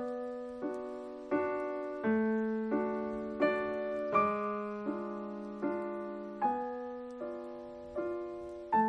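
Slow piano music: a note or chord struck about every three quarters of a second, each ringing and fading before the next.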